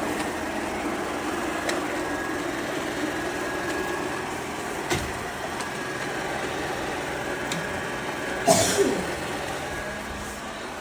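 Shark PowerDetect NeverTouch Pro robot vacuum running, a steady whir of its suction motor and brushes with a faint high whine. A few light clicks and one louder knock about eight and a half seconds in.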